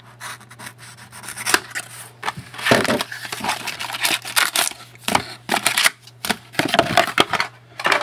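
Trading card packs and cards being handled: scratchy rustling of the wrapper and cards sliding against each other, with many short clicks.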